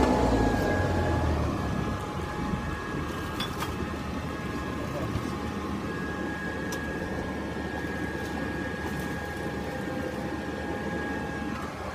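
Small seaplane's engine running steadily, heard from inside the cabin as a drone with a thin steady whine. The level drops about two seconds in.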